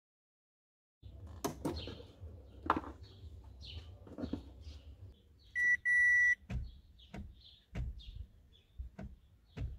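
Two electronic beeps from a car's warning chime, a short one and then one held for about half a second, amid scattered clicks and knocks of handling, with birds chirping.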